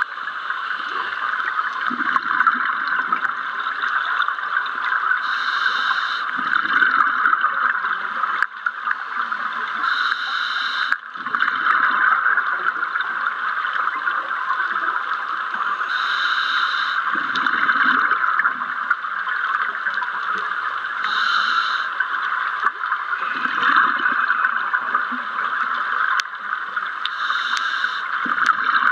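Underwater camera sound: a steady hiss with a scuba diver's regulator breathing, a burst of exhaled bubbles about every five to six seconds.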